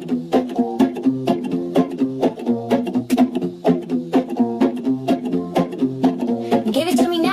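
Background music: strummed acoustic guitar with a steady beat, and a voice starting to sing near the end.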